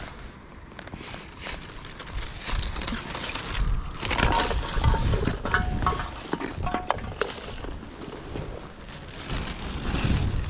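Crinkling and rustling of plastic litter being dragged out of a gap between concrete slabs, with irregular scrapes and knocks against the concrete; busiest about four to seven seconds in, with a few brief squeaks.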